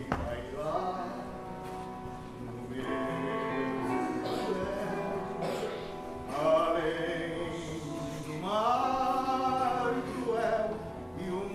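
Mixed choir of men's and women's voices singing in harmony, holding long notes with a few phrases sweeping up in pitch and swelling louder partway through.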